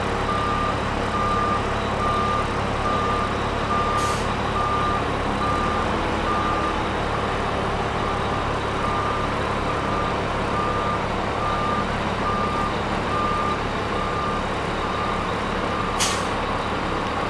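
Diesel engine of a heavy reach-stacker container handler running under load, with its motion alarm beeping at a regular pace throughout. The engine note shifts about five and a half seconds in, and two short air hisses come about four seconds in and near the end.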